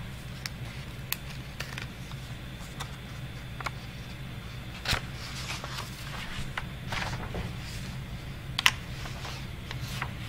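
Desk handling noise from a pen and paper: scattered clicks and taps with some paper rustling, over a steady low hum. There is a louder knock about five seconds in and a sharp click near the end.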